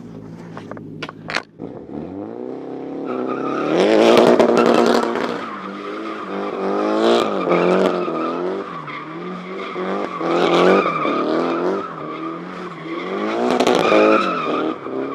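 Nissan Silvia S14's SR20 four-cylinder engine revving up and falling back in repeated surges as the car drifts, with tyres squealing under it. A few sharp clicks come in the first second or so.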